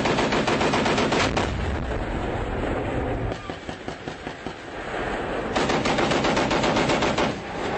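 Humvee turret-mounted .50-calibre machine gun firing two long bursts of about a second and a half each, one at the start and one about five and a half seconds in, with quieter gunfire between them.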